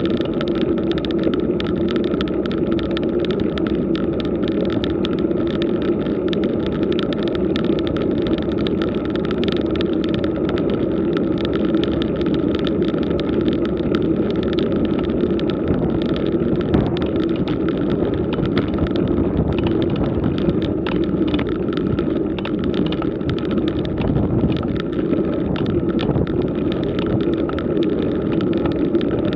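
Road bike climbing slowly over rough asphalt, picked up by a camera mounted on the bike: a steady rumble of the tyres on the road with many small rattling ticks.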